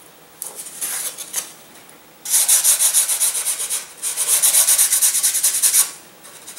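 Sanding block rubbed in quick back-and-forth strokes along the edge of a thin balsa aileron. The strokes come in two bouts of about two seconds each, with a brief pause between them, and a few lighter scrapes come first.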